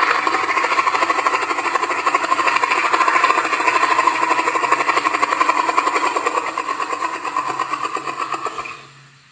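Acrocanthosaurus dinosaur sound effect: a long, loud, rapidly pulsing growl that fades out near the end.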